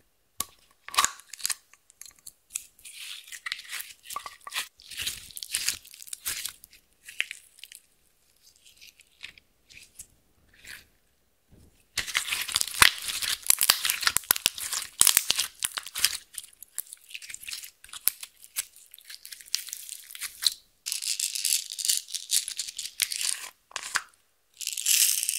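Close handling of small plastic containers and packaging: scattered clicks, taps and rattles, then dense plastic crinkling for a few seconds from about twelve seconds in, with more bursts of crinkling near the end.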